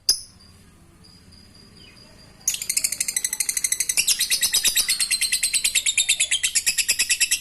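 Lovebird (Agapornis) giving its long 'ngekek' chatter: a rapid, evenly repeated rattle of sharp notes, about ten a second. It starts about two and a half seconds in and runs on for about five seconds, after a short click and a faint thin whistle.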